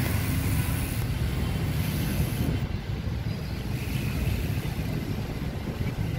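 Wind rushing over the microphone of a camera held by a rider on a moving bicycle, with tyre noise from the pavement: a steady, fluttering low rumble.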